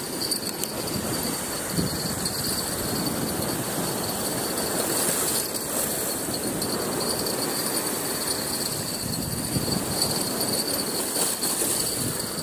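Steady rushing wash of sea surf on the beach, with crickets trilling at one high, steady pitch.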